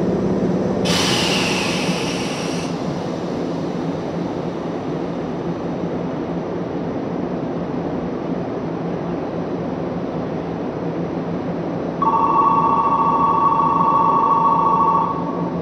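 Steady low hum of a Tokyu 8500 series train standing at an underground platform, with a short hiss about a second in. About 12 seconds in, the platform's departure bell rings steadily for about three seconds, signalling that the doors are about to close.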